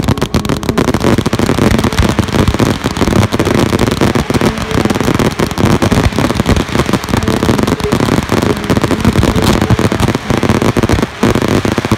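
Fireworks crackling and popping in a dense, rapid, unbroken barrage of sharp reports, many each second.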